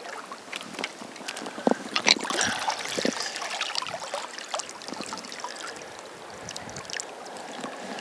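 Water splashing and trickling off a waterlogged, moss-covered stick as it is pulled up out of a shallow river and held up dripping, over the steady rush of the current. The sharpest splashes come about two seconds in.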